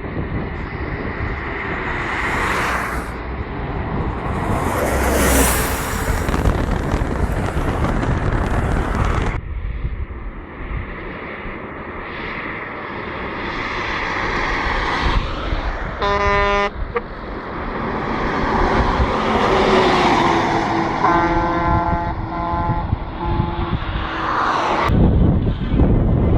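Bus air horns sounding over continuous wind and road noise. There is one short blast about sixteen seconds in, then a longer blast a few seconds later whose pitch falls slightly.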